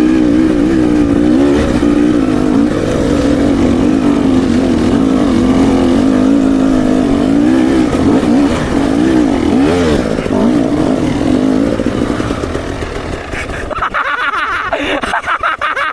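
KTM enduro dirt bike engine running, its pitch wavering, with a rev up and down about nine to eleven seconds in. It fades out after about twelve seconds, and a higher, wavering sound with sharp clicks takes over for the last two seconds.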